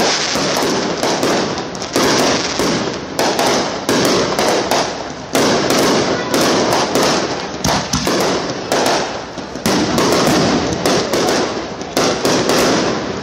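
Aerial fireworks going off in a dense, loud barrage: shell bursts come several a second and overlap with no let-up, as in a fireworks finale.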